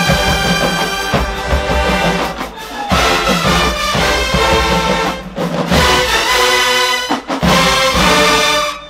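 Full marching band playing loud: sousaphones, trumpets and trombones over the drumline. The phrases are broken by three short pauses, and the whole band cuts off together at the very end.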